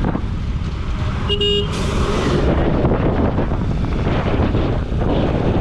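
Motorcycle riding noise: wind buffeting the helmet-mounted camera over the running engine of a Bajaj Pulsar RS200, with one short vehicle-horn toot about a second in.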